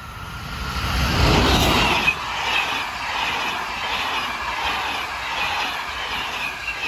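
Train of Corail passenger coaches passing close by. A rush of wheels on rail swells to its loudest a second or two in, with one sharp click, then runs on steadily with a faint high squeal as the coaches go past.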